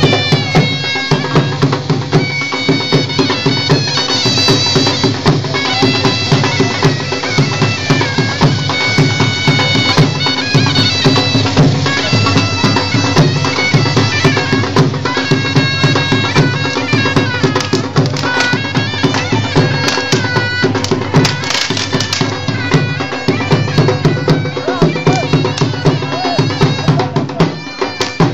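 Bagpipe music: a steady drone under a fast, high melody, with a regular drum beat.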